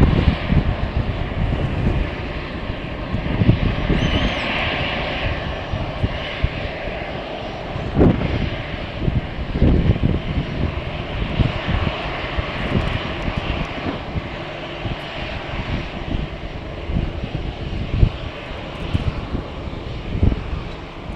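Jet airliner engines running, a steady rush of noise with a faint high whine, while strong gusts buffet the microphone in irregular low thumps.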